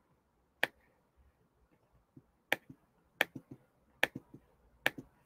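Sharp clicks from working a computer's mouse and keys, about ten in all. Some come singly and some in quick runs of two or three, irregularly spaced.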